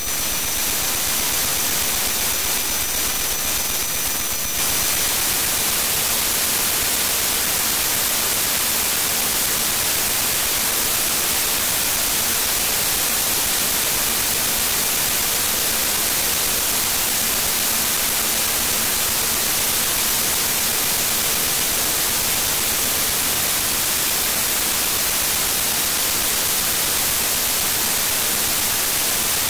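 Loud, steady static hiss spread evenly over all pitches, strongest in the highs. A few faint steady tones sit underneath and stop about four and a half seconds in, where the hiss gets slightly louder.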